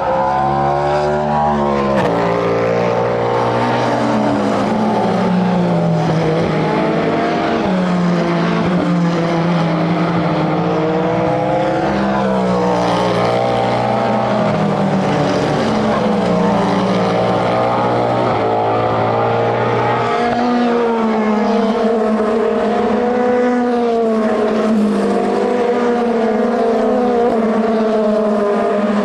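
Racing car engines running trackside, several engine notes overlapping and rising and falling in pitch without a break; the lowest engine note drops out about two-thirds of the way through.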